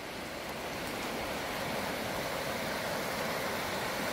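Shallow creek rushing over rocks: a steady wash of water that builds up over about the first second and then holds.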